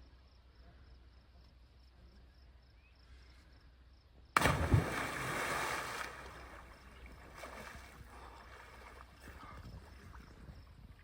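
A person jumping into a cold lake: a sudden big splash about four seconds in, a couple of seconds of churning water, then softer splashing as he moves about in the water.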